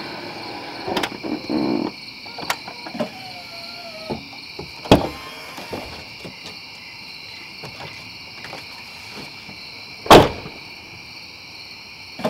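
Crickets chirping steadily in a dense chorus, with several sharp clicks and knocks; the loudest knock comes about ten seconds in.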